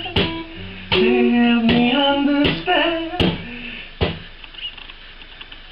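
Acoustic guitar strummed in chord strokes about every three-quarters of a second, with a voice holding sung notes over it. The last chord rings out about four seconds in.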